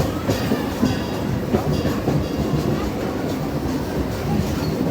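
Train running on rails: a steady rumble with scattered short clicks from the wheels.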